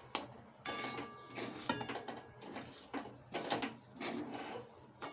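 Metal spoon scraping and clinking against an aluminium kadai while dry, crumbly semolina upma is stirred; twice a strike leaves a short metallic ring. A steady high-pitched trill runs underneath.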